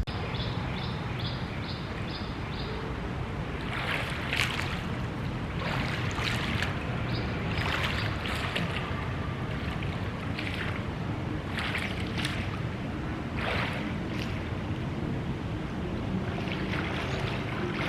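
Pool water splashing in irregular bursts every second or two over a steady wash of water noise, as someone swims through it.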